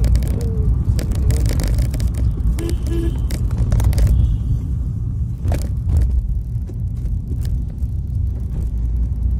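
Steady low engine and road rumble heard from inside the cab of a moving vehicle, with scattered knocks and rattles from the bumpy road.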